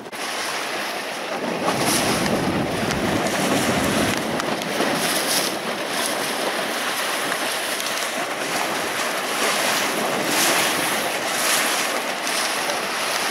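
Water rushing and splashing along the steel hull of a moving river ferry, with wind buffeting the microphone, strongest in the first few seconds.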